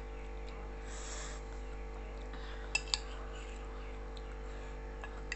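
Two quick clinks of an eating utensil against a bowl, a little before the middle, over a steady low hum.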